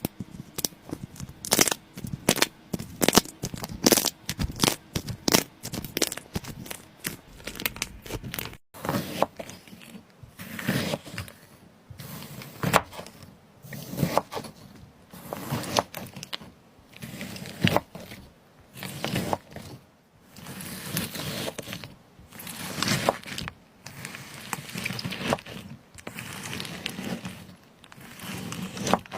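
Slime being squeezed and pressed by hand, crackling and popping with many sharp clicks. After a cut about nine seconds in, it goes to slower, regular squishes about one a second.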